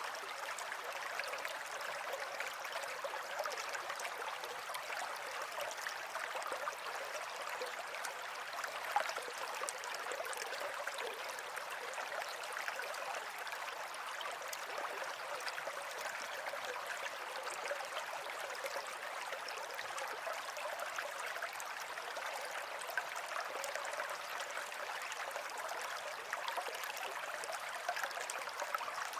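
Running water, a steady stream or brook flowing and babbling with many small splashes.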